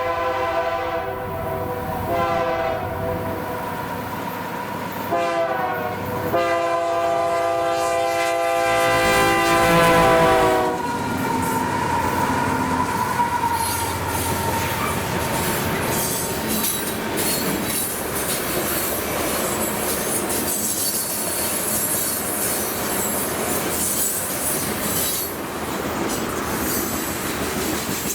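Freight locomotive air horn sounding a chord in several blasts, the last and longest dropping in pitch as the locomotive passes. Then a freight train's cars roll by with steady clickety-clack and wheel squeal.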